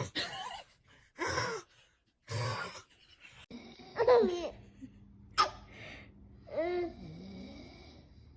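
A man snoring, three rough snores about a second apart, followed by a baby's high squeals and gasps in reply.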